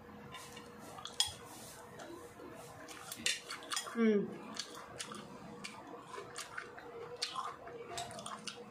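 Eating sounds from hand-eating at a table: scattered light clinks and taps of a plate, and fingers working the rice. About four seconds in there is a brief falling vocal murmur.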